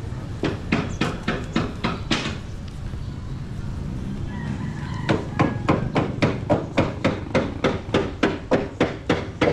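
Rapid, evenly spaced knocking, about three or four strikes a second: a short run near the start, then a longer, louder run from about five seconds in.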